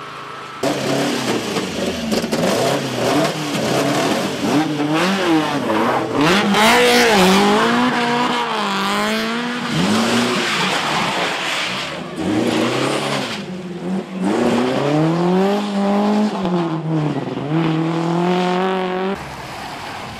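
Historic rally cars driven hard on a stage, engines revving high and dropping back again and again through gear changes as they pass. The sound starts suddenly just after the start and falls away near the end.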